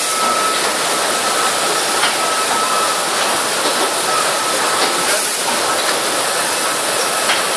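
Steady loud hiss of machinery in an exhibition hall, with a thin steady whine running through it.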